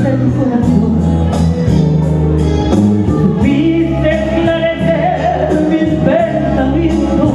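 A woman singing a bolero with a live band: steady bass notes and a regular beat under her voice.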